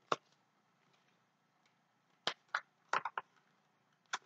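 Pages of a large paperback picture book being handled and turned: a few short, sharp paper crackles and taps. One comes just after the start, a quick cluster follows about two to three seconds in, and one more comes near the end.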